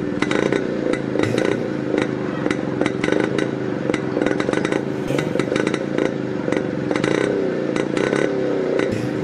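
Motorcycle engine running steadily with a dense rattling clatter, the revs wavering a little near the end.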